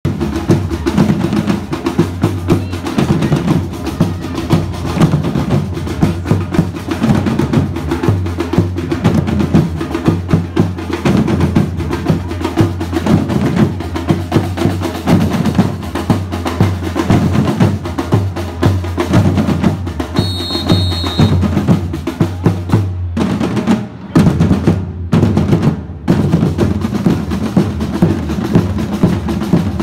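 A street percussion band drumming with sticks on metal barrel drums in a fast, dense rhythm. A short whistle sounds about two-thirds of the way through. After it the drumming stops briefly a few times and starts again.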